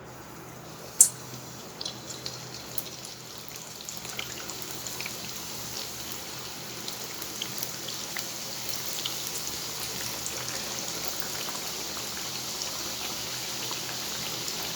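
Chicken spring rolls frying in a pan of hot oil: a steady sizzle with scattered crackles that grows gradually louder, and a sharp click about a second in.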